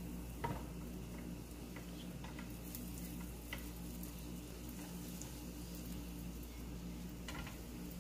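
Butter sizzling as it melts in a hot frying pan, stirred with a silicone spatula. A few soft scrapes and taps against the pan come through, the sharpest about half a second in.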